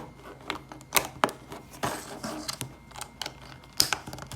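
LEGO plastic pieces clicking and knocking together as the handles are pressed onto the knife, with soft rubbing between several sharp clicks; the loudest clicks come about a second in and near the end.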